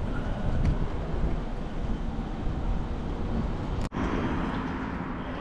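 Wind buffeting the microphone on a moving bicycle, a steady rushing noise. It cuts out for an instant about four seconds in.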